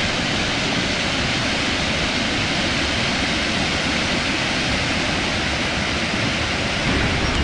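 Water pouring over a low dam across a creek, a steady rushing.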